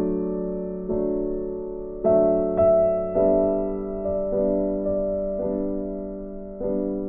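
Background music: a slow, gentle piano piece, with chords struck about once a second and left to fade.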